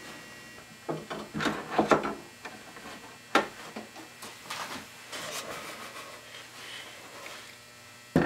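Wood on wood: small wooden blocks knocked, slid and set into place inside a wooden saw till built of Douglas fir and pallet wood. A cluster of knocks and scrapes comes about a second in, a sharp single knock a little after three seconds, lighter rattles after that, and a loud knock near the end.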